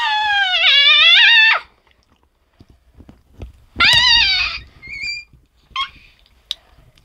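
A boy's high-pitched wordless cries at the burn of spicy hot sauce: a long wavering wail at the start, a shorter falling one about four seconds in, then a few short squeaks.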